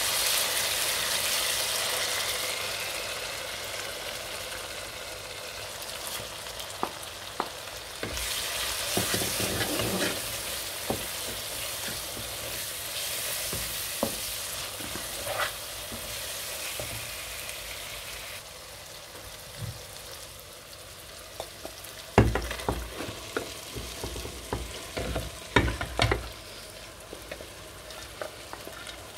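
Tomato and onion masala sizzling in a pot while a wooden spatula stirs and scrapes it; the sizzle is strongest at first and dies down. Near the end comes a run of loud knocks and clatter as split chickpeas (chana dal) are tipped into the pot from a steel bowl.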